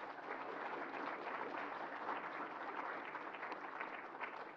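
A lecture-hall audience applauding, many hands clapping at once in a steady, even patter.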